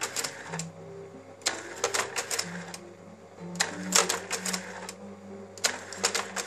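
Braun Novamat 515 AF slide projector's slide changer cycling: a rattling cluster of clacks each time a slide is swapped and the magazine steps on, four times about two seconds apart. A steady low hum runs underneath.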